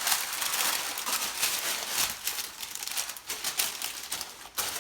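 Cake batter being stirred in a mixing bowl: a fast, irregular run of scraping clicks.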